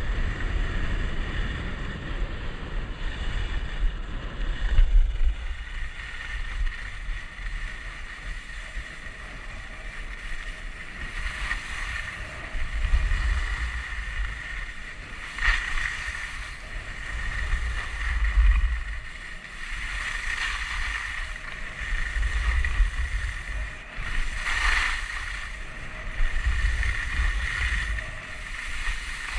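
Wind buffeting a helmet-mounted action camera's microphone during a fast run down groomed snow, with the hiss of edges scraping over the packed snow swelling several times as the rider turns.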